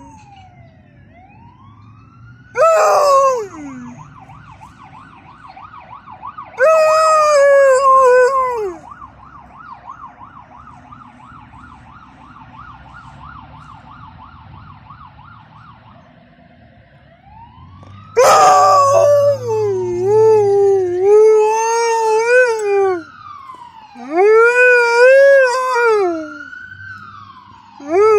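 An Alaskan Malamute howls in several long calls that bend and fall in pitch, one near the middle drawn out and wavering. The dog is howling along to an ambulance siren, which wails and yelps more faintly between the howls, with a fast warble through the quiet middle stretch.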